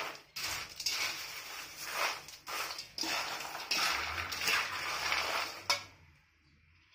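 Crisp fried nylon sago, potato sticks and banana sev rustling as a perforated metal spoon tosses them in a steel bowl. The mixing comes in a series of short strokes that stop about six seconds in.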